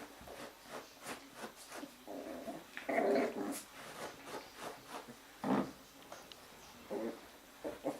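Jack Russell Terrier puppies play-growling, with short yips among a run of brief scuffling sounds; the loudest growls come about three seconds in and again about five and a half seconds in.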